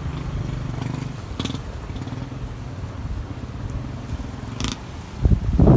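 A small engine running steadily. It is most prominent for the first couple of seconds, then grows fainter, with a couple of light clicks.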